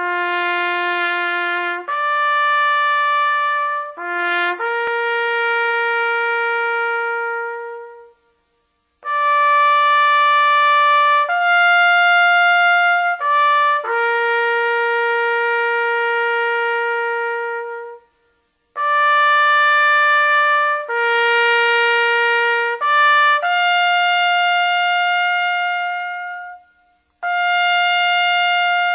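Solo melody on a single wind instrument: long held notes in phrases, with short breaks between phrases about 8 and 18 seconds in and again near the end.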